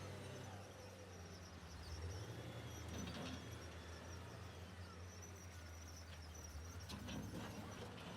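Heavy earthmoving machinery's diesel engine running steadily with a low hum, with a couple of faint knocks and a few faint bird chirps.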